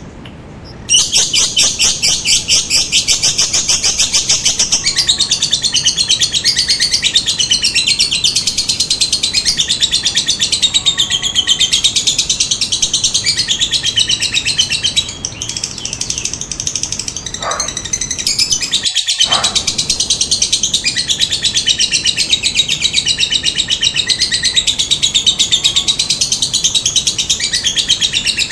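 Lovebird singing a long, fast chattering trill (the 'ngekek' that keepers prize), a rapid run of high chirps. It starts about a second in and carries on with only a brief break about two-thirds of the way through.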